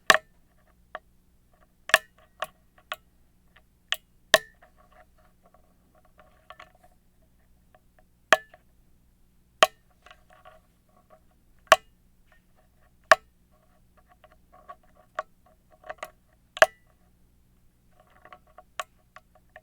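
Pick and tension wrench working the pin stack of an American 1100 padlock: irregular sharp clicks, about a dozen over the stretch, with faint scratchy rattling of the pick against the pins between them.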